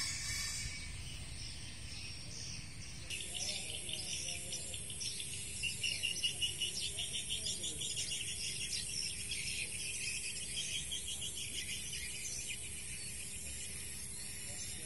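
Rapid, high-pitched outdoor chirping of small creatures, many pulses a second, setting in about three seconds in and loudest a few seconds later, over a low steady background rumble.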